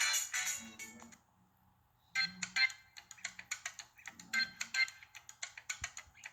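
Preloaded ringtones playing on an LG 430 phone: one tune of quick notes fades out in the first second, and after about a second of silence another ringtone of short, rhythmic notes begins.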